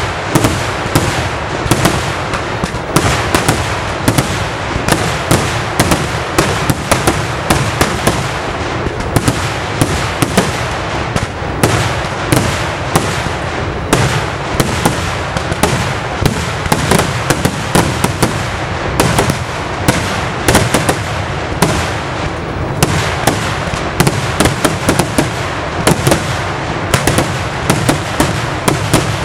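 Kerala temple-festival fireworks (vedikkettu) going off in a dense barrage: loud, sharp bangs of firecrackers and bursting shells, several a second, overlapping without a break.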